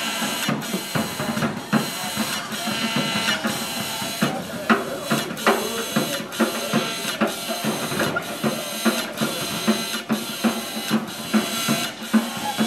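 Mechanical clanking, ratcheting and whirring from motorised scrap-metal robots and mechanical-sounding percussion, with a regular beat of sharp strikes a little under twice a second.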